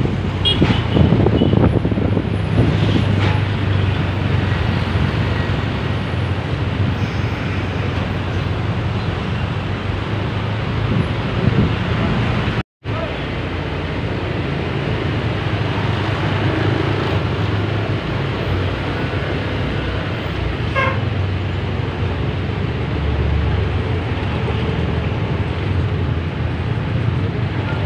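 Bus engine running amid road traffic, with a few short horn toots. The sound drops out completely for a split second about halfway through.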